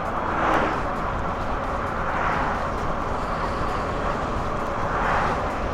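Steady road noise of a car driving at highway speed, heard from inside the cabin, swelling and easing a few times.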